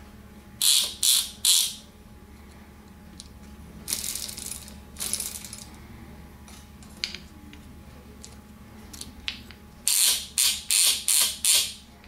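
Cable drum and chain drive of a Columbia automatic drywall taper, clicking and ratcheting as it is worked by hand. There are three short bursts about a second in, a longer rattle around the middle with scattered clicks, and five quick bursts near the end.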